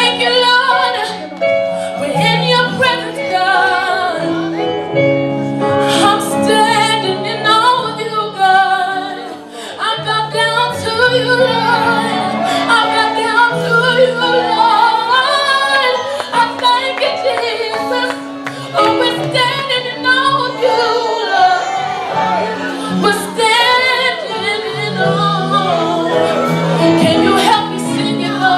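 A woman singing wavering, melismatic vocal runs, with no clear words, over sustained keyboard-style chords in a gospel worship song.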